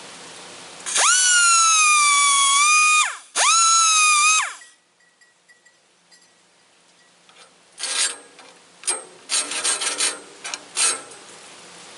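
Hand file being drawn across a steel saw blade's teeth. Two long, loud, high-pitched squeals come first, then several short rasping strokes near the end.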